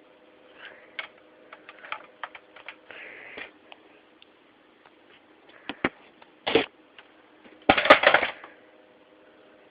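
Scattered sharp clicks and knocks, then two short bursts of noise: a brief one about two-thirds of the way in and a louder one lasting most of a second near the end, over a faint steady hum.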